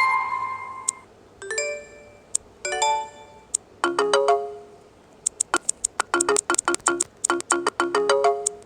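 Asus ZenFone 2 Laser ringtones playing: short chiming electronic melodies in phrases with brief pauses between them, then a fast run of quick repeated notes from about five seconds in.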